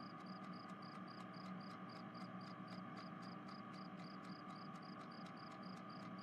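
Faint night ambience of crickets chirping, an even pulse of about three chirps a second over a low steady hum.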